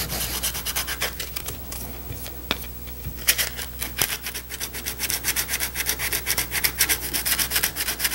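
Sandpaper rubbed by hand in quick back-and-forth strokes, several a second, over a cardboard tab on the edge of a metal seat pan, feathering the cardboard down where it meets the metal. The strokes thin out briefly about two seconds in, then resume.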